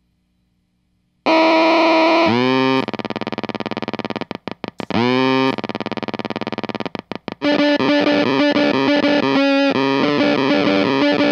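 Bliss Factory fuzz pedal self-oscillating with its stab control turned down: a loud, steady, buzzy fuzz drone starts about a second in. Its pitch swoops as the knobs are turned, and it stutters on and off rapidly twice. From a little past the middle, distorted electric guitar notes are played through the pedal along with the oscillation.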